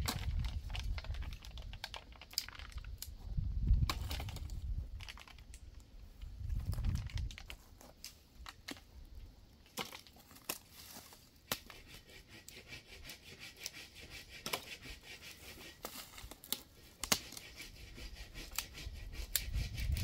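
Dry wood crackling and snapping: many small, sharp, irregular cracks. A few low rumbles come in the first seven seconds.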